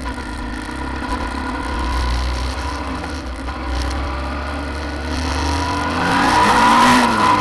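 Suzuki V-Strom 650 XT's V-twin engine running as the motorcycle rides along, with wind noise on the microphone. The engine and wind get louder about six seconds in.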